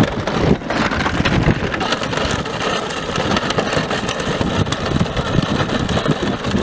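Wheels of a child's Batmobile ride-on kart rolling over gravelly, cracked asphalt: a continuous rumble full of crunching grit.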